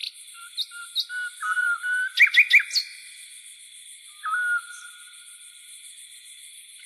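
Tropical forest birds giving short whistled notes, with a loud run of three quick chirps a little past two seconds in, over a steady high drone of insects such as crickets.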